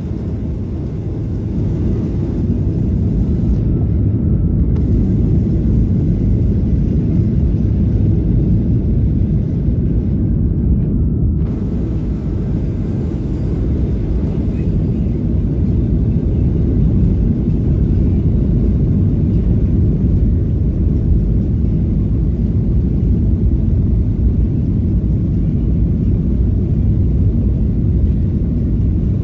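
Steady low rumble of a jet airliner heard from inside the passenger cabin as it rolls along the runway for takeoff. It swells a little about two seconds in, then holds steady.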